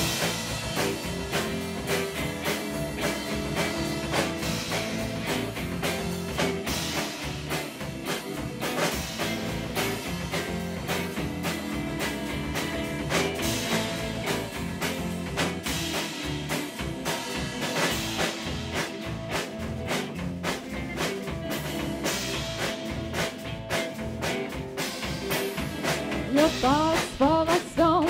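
Live band music starting abruptly: an instrumental passage with a steady run of drum hits, and a singing voice coming in near the end.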